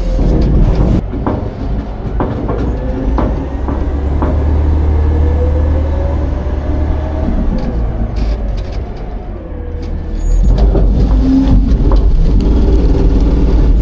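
Autocar/Heil Half/Pack garbage truck running a packing cycle: a low engine rumble with a hydraulic whine that rises and then falls midway, and scattered clunks and rattles of trash and steel. It gets louder again near the end.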